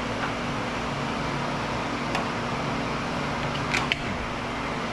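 Steady hum of an electric motor running, with a couple of light clicks about two and four seconds in.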